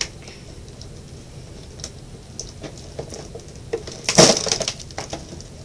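Packaging handled by hand: scattered light clicks, with a louder burst of crackling about four seconds in.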